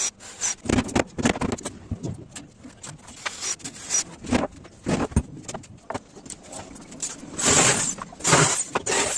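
Workshop sounds of wood being handled and worked: irregular knocks and scrapes, with a longer, louder rasping stretch about seven and a half seconds in.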